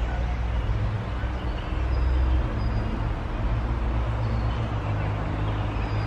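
Steady low rumble of outdoor background noise in a wooded park, with a few faint, short high chirps.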